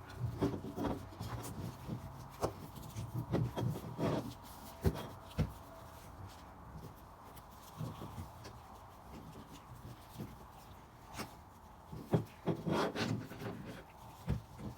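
Titanium fiberglass exhaust heat wrap being wound around a turbo downpipe: irregular rubbing and scraping of the wrap against the pipe, with scattered knocks from handling the pipe.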